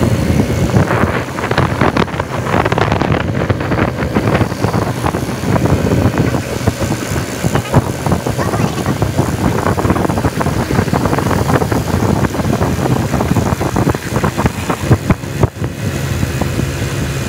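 Wind buffeting the microphone of a moving vehicle over the running of small motorcycle engines on the road. The buffeting eases about a second before the end, leaving a steadier engine hum.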